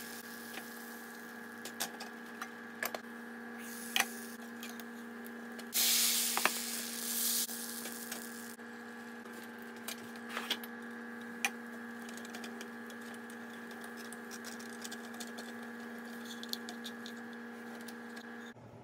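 Steady electrical hum in a kitchen, with scattered light clicks and knocks from a nonstick pan and its glass lid. There is a short hiss about six seconds in, and the hum cuts off just before the end.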